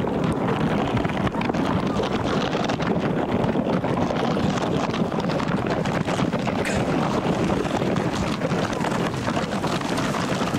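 Steady, rough rushing noise of wind buffeting the microphone as it moves quickly alongside the chair pull.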